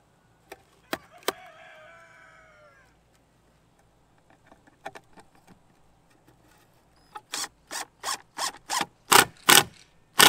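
Cordless impact driver driving a wood screw through a cedar board. A short motor whir comes about a second in, and in the last three seconds there is a run of rattling hammering bursts, about three a second and growing louder, as the impact mechanism engages while the screw seats.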